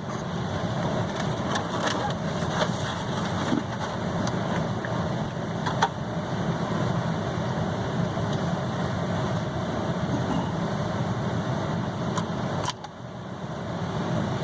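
Steady low rumble of a running vehicle engine, with a few faint clicks; it dips briefly near the end.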